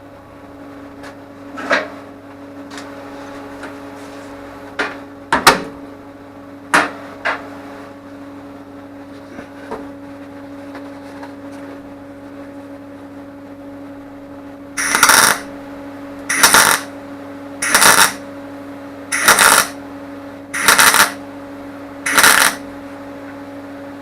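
A few sharp metal clanks, then a run of six short welding bursts on sheet steel, each about half a second long and one and a half seconds apart, as the hinge is tack- or stitch-welded. A steady electrical hum sits underneath.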